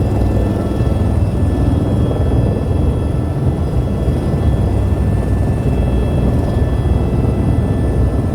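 Helicopter in flight: a loud, steady din of rotor and engine noise, heaviest in the low end, with faint steady high whining tones over it.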